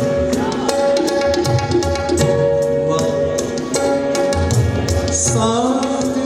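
Tabla playing a steady rhythm of sharp strokes over held harmonium and keyboard chords.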